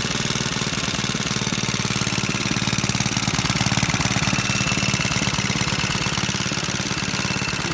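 1948 Clinton 702-ABR6 small single-cylinder air-cooled engine running steadily, with an even, rapid firing beat.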